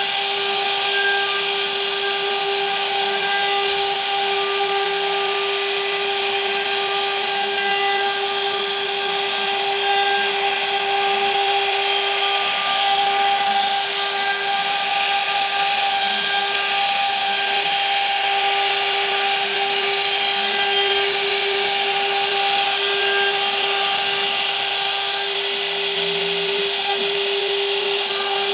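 A CNC router spindle runs with a steady whine while its bit cuts decorative grooves into a wood panel, with the hiss of the cutting over it.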